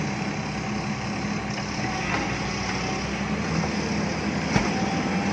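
A heavy earthmoving machine's diesel engine running steadily, with an even hum. A single sharp knock comes about four and a half seconds in.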